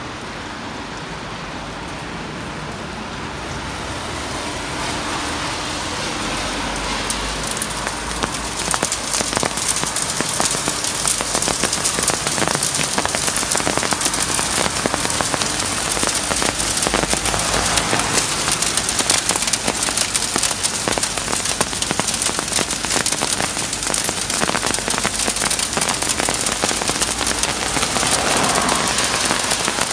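Heavy rain pattering on the pavement and parked cars, building over the first several seconds into a dense, crackly patter of drops. A car passes on the wet road near the end.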